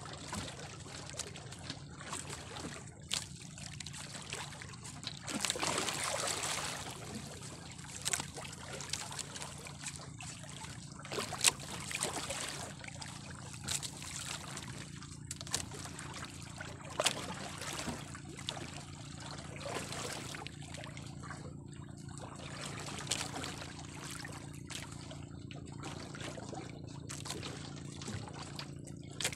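Sea water lapping and splashing against a small boat, louder for a stretch about five to seven seconds in, with scattered sharp clicks and knocks and a steady low hum underneath.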